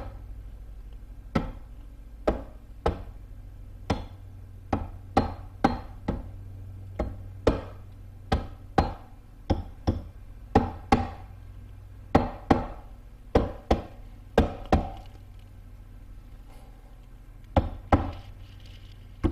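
Rubber mallet lightly tapping around the aluminium crankcase halves of a Husqvarna FE501 (KTM 500 EXC) engine to seat them flush together: a run of sharp, irregular taps about one or two a second, with a pause of a couple of seconds near the end.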